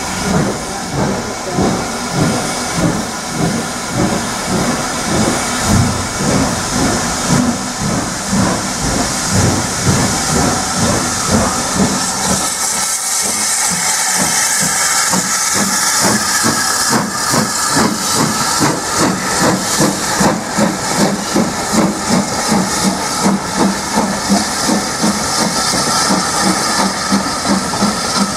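Steam locomotive working a train past at close range: regular chuffing exhaust beats, then from about halfway a strong hiss of steam as it draws level, with wheels clicking rhythmically over the rail joints.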